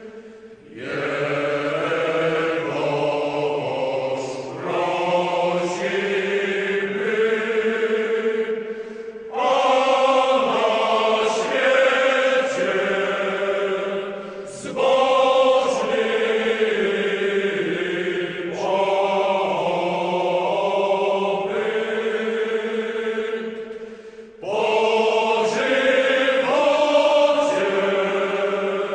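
Voices chanting in a choir, holding long notes in phrases several seconds long with brief breaks between.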